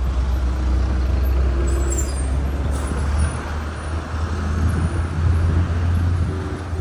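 A motor vehicle riding through city traffic: a steady low engine and wind rumble on the microphone, with a few brief high hisses about two to three seconds in.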